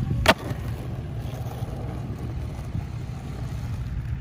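A sharp clack of a skateboard striking asphalt about a third of a second in, followed by a steady low rumble.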